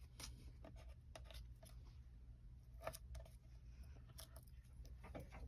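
Faint, scattered small clicks and rustles of paper crafting by hand: a small cut paper piece and foam adhesive dimensionals being handled and pressed into place on a desk.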